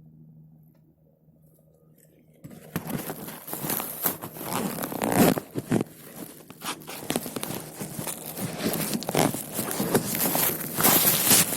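Close rustling and scraping with many sharp clicks, like clothing or gear rubbed and handled right against the microphone. It starts suddenly about two and a half seconds in, after a faint steady hum.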